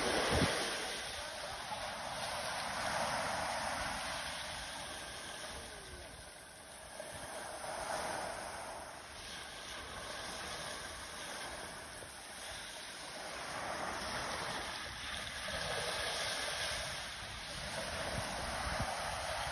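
Small sea waves washing up a sandy beach and breaking around boulders: a steady surf hiss that swells and ebbs every few seconds as each wave runs in and draws back.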